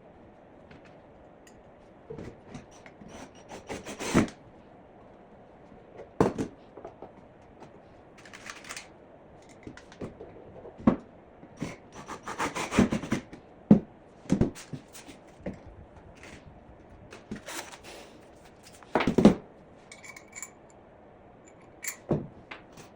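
Lumber and hardware being handled: scattered knocks and clunks with rubbing and scraping at irregular intervals, the loudest a few sharp knocks about eleven, fourteen and nineteen seconds in.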